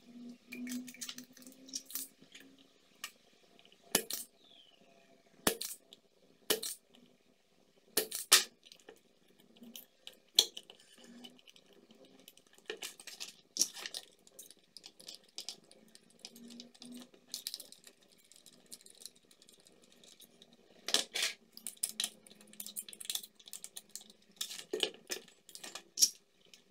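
Irregular sharp clicks and light metallic knocks from a UPS inverter's circuit board, heatsink and metal casing being handled with tools. Louder clusters of knocks come about eight seconds in and again after twenty seconds.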